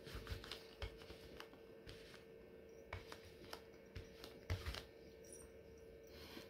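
Faint sticky crackle and scattered light clicks of a lint roller being rolled and pressed over faux fur, over a faint steady hum.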